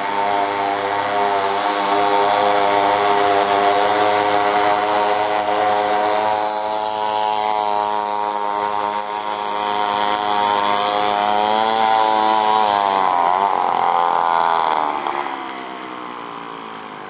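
Small two-stroke engine of a homemade motorized scooter running hard at high revs, a steady high engine tone. About three-quarters of the way through, the pitch wavers and falls, and then the sound fades.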